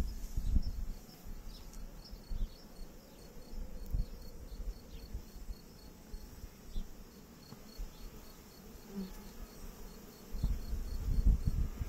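Honeybees buzzing among the hives, with a fast, even high-pitched pulsing throughout. Low rumbles on the microphone at the start and again near the end.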